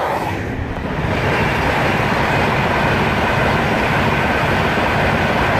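A Class 91 InterCity 225 electric train passing at speed. A loud, steady rushing noise builds over the first second and then holds.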